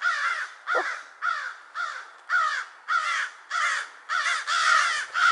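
American crows cawing in a rapid, unbroken series of harsh caws, about three a second.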